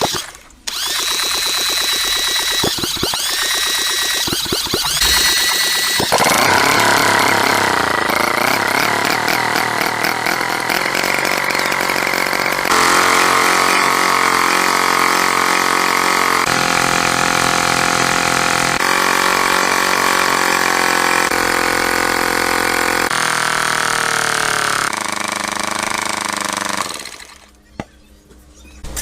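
Tractor engine running, heard in several short clips cut together, its pitch and tone shifting abruptly from one clip to the next.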